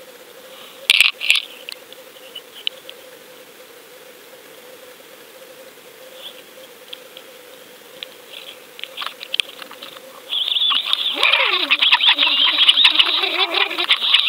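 Underwater sound picked up by a camera in a waterproof housing hanging on a fishing line: a faint steady hum with a few sharp clicks, then about ten seconds in a loud grating, rattling noise with wavering tones sets in and keeps on.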